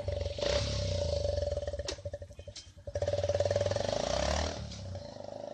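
Honda Dream Neo's small single-cylinder engine running, heard at the exhaust, its level swelling twice as the throttle is opened and easing off near the end.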